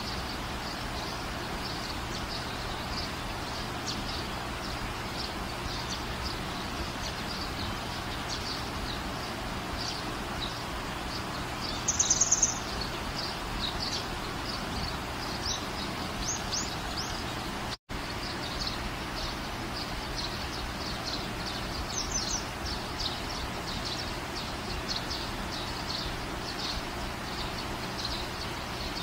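Small birds chirping over a steady background hiss. There is a brief louder trill about twelve seconds in, and the sound cuts out for an instant a little past halfway.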